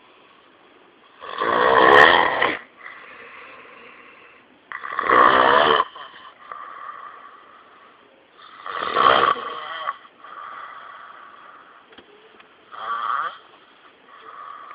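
Snoring in sleep: four loud snores spaced about three and a half to four seconds apart, with a fainter, thinner breath sound between them. The last snore is softer.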